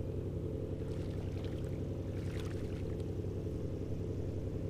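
A boat motor running steadily with a low, even hum.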